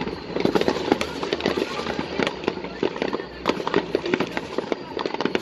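Fireworks going off in a dense, irregular string of sharp cracks and crackles, many each second, easing briefly a little past the middle before picking up again.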